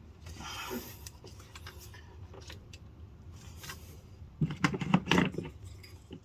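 Small metal clicks and clinks of hand tools and hardware, with a louder burst of rattling about four and a half seconds in, as a 13 mm nut is fitted onto the starter's battery cable terminal.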